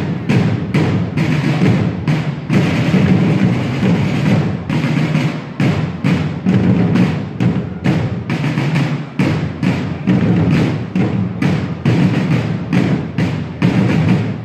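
A drum corps beating a steady, fast marching rhythm, a little under three strokes a second, as accompaniment to a medieval flag-throwing display.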